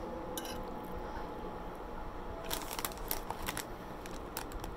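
Close-up eating sounds: a run of small sharp clicks and smacks starting about halfway through, over a low steady hum.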